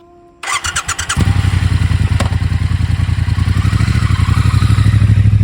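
Triumph Bonneville T120's 1200 cc parallel-twin engine being started: the starter cranks briefly, the engine catches about a second in, and it settles into a steady, loud, pulsing idle.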